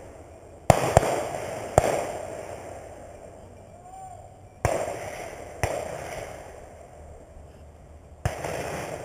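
Shotgun shots fired at pheasants: six reports, the first two close together and the loudest, the rest spread over the following seconds, each trailing off in a long rolling echo.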